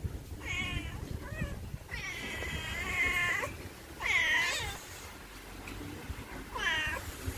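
A cat meowing repeatedly: about five meows, the longest one drawn out for over a second about two seconds in.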